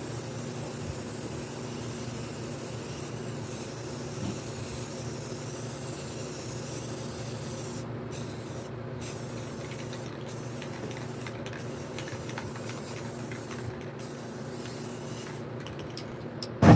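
Aerosol spray-paint can hissing, continuous at first and then in short bursts with brief pauses from about halfway. A low steady hum runs underneath, and a sudden loud sound comes right at the end.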